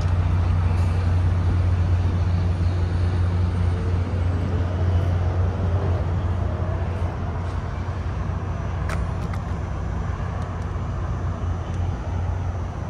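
Tri-Rail diesel locomotive idling: a steady low hum with engine noise, with road traffic noise around it.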